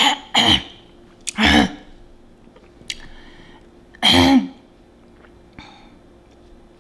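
A woman coughing and clearing her throat in short harsh bursts, three close together and one more about four seconds in, choking on her own saliva.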